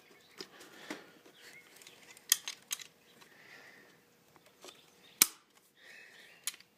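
Sharp plastic and metal clicks and knocks as a distributor cap is set back in place on the engine, with the loudest single click about five seconds in.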